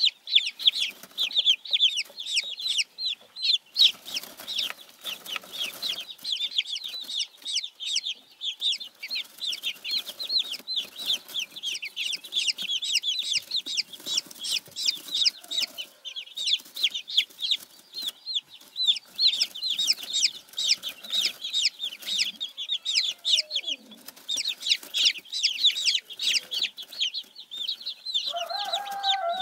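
A brood of baby silkie chicks peeping continuously, many rapid high-pitched peeps overlapping. Near the end a lower, drawn-out call begins.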